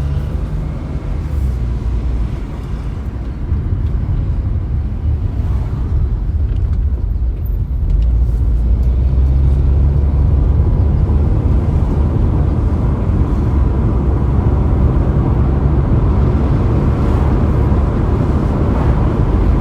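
Car being driven: a steady low rumble of engine and road noise that gets louder about eight seconds in.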